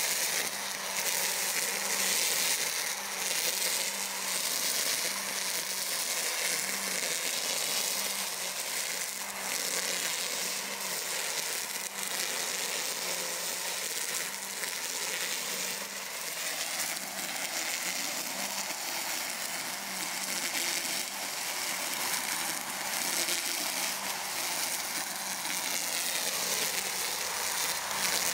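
EGO Power+ cordless brush cutter running steadily, its electric motor giving a faint hum under the steady hiss of the spinning cutting head slashing through tall grass.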